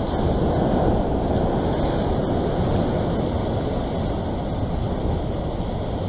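Ocean surf washing over a rock ledge, a steady rushing noise, with wind buffeting the microphone.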